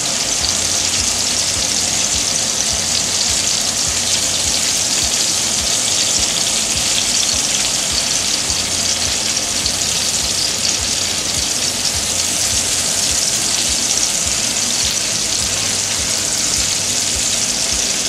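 Meat-wrapped stuffed peppers frying in olive oil in a stainless steel pan, a steady sizzle.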